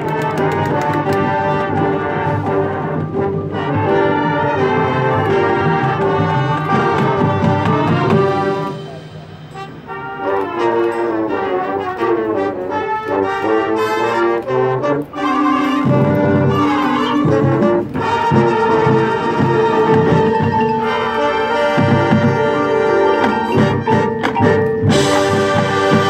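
Marching band playing its field show: brass chords over drums and front-ensemble percussion. The band drops to a brief hush about nine seconds in, then builds back with heavy drum hits.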